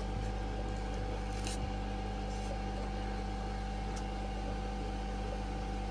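Steady electrical hum and hiss of fish-room equipment, with a low mains drone and a few faint steady tones above it; one soft click about a second and a half in.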